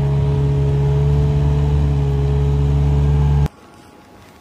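Diesel engine of a Gehl compact wheel loader running steadily at an even pitch while it pushes feed with its blade. It cuts off abruptly about three and a half seconds in, leaving only a faint hiss.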